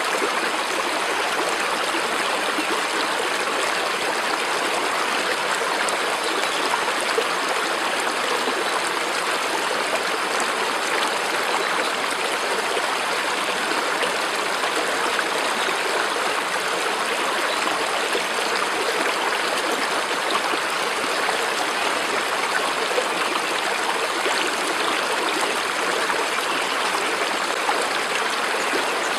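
Stream water running and trickling steadily, an even, unchanging rush.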